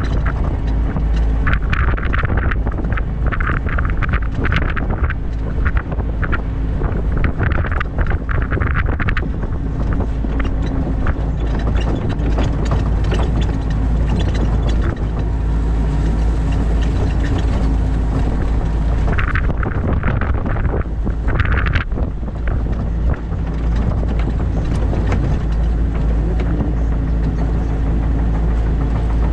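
New Holland Kobelco E50.2 mini excavator's diesel engine running steadily, heard from the cab. Repeated short, higher-pitched hydraulic bursts come through the first nine seconds and again about twenty seconds in, as the machine swings and moves.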